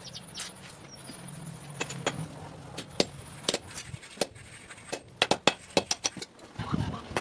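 Hammer blows on metal at a blacksmith's anvil, sharp ringing strikes, irregular at first and then coming about three a second in the second half.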